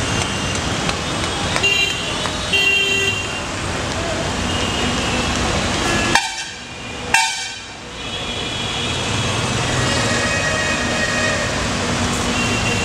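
Busy street ambience: road traffic running with horns honking on and off and people's voices. The noise drops away sharply for about a second and a half around six seconds in, then returns.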